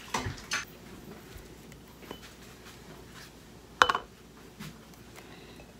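Glass canning jars and a plastic canning funnel being handled on a kitchen counter: a few light knocks and ticks, with one sharp clink a little before the end as the funnel is seated on a pint jar.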